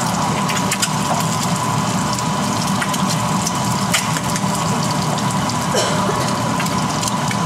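Egg frying in oil in a pan on a gas stove, sizzling steadily with scattered small crackles. The kitchen range hood fan hums steadily underneath.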